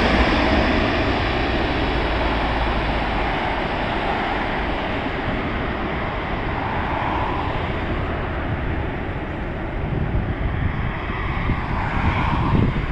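Emirates Airbus A380's four jet engines, a steady roar that fades as the airliner moves away and lands. Near the end, gusty rumbling of wind on the microphone and a car passing close on the road.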